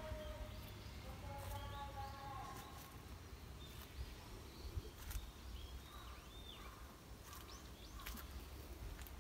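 Footsteps on a dirt path strewn with dry leaves, with small birds chirping a few times around the middle, over a steady low rumble.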